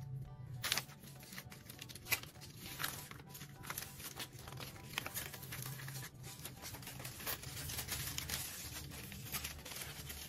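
Adhesive sticker paper's yellow protective sheet being peeled off and crinkled by hand, a dense run of small paper crackles and rustles, over soft background music.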